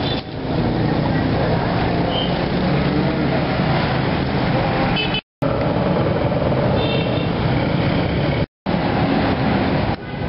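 Steady street traffic noise with motor vehicle engines running, broken twice by short silences about five and eight and a half seconds in.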